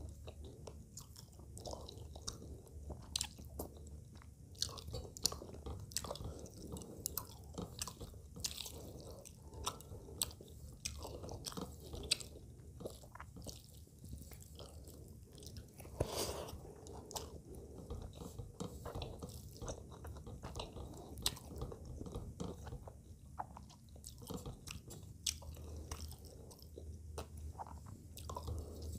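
Close-miked chewing of rice and fish curry eaten by hand, with many small sharp clicks. Fingers scrape and gather the rice across a steel plate.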